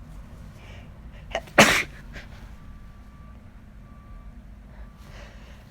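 A person's single induced wet sneeze about one and a half seconds in: a sudden loud burst with a short sharp sound just before it.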